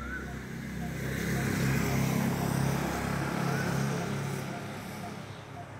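Motorcycle engine passing by, growing louder about a second in and fading away near the end.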